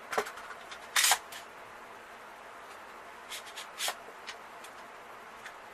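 Short metallic clicks and clacks of a Smith & Wesson M&P15 Sport II AR-15 rifle being handled during a magazine change. The loudest clack comes about a second in, with a few lighter clicks near the middle.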